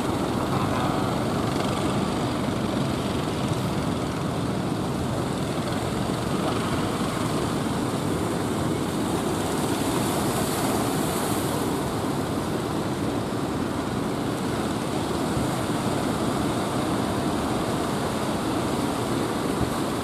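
Engine of an outrigger fishing boat running steadily as it crosses the surf, mixed with the wash of breaking waves and wind.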